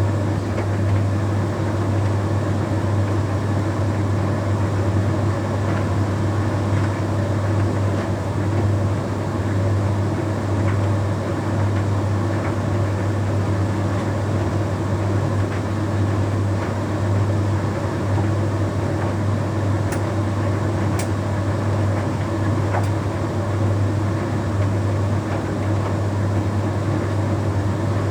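Bosch Series 6 heat pump tumble dryer running mid-cycle on a Shirts programme: a steady low hum from the heat pump compressor and fan with the drum turning. A few light ticks come about twenty seconds in.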